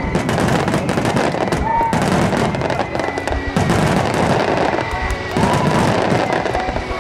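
Starmine fireworks barrage: rapid aerial shell bursts and continuous crackling of glitter stars, with music playing over it.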